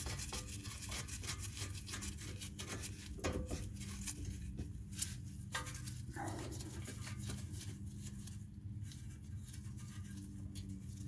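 Light, irregular metallic clicks and scrapes as a brake caliper bracket bolt is run in and tightened by hand. The clicking thins out after about five seconds, over a steady low hum.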